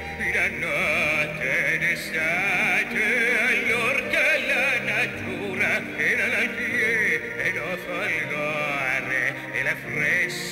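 Operatic solo singing with a wide vibrato over orchestral accompaniment.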